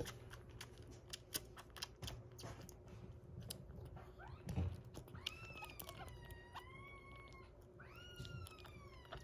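A kitten sucking milk from a feeding bottle's nipple, with quick wet sucking clicks, then a kitten mewing twice in long, wavering cries, about five and eight seconds in.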